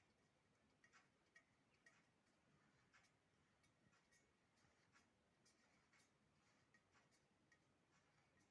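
Near silence with faint short ticks, roughly one a second.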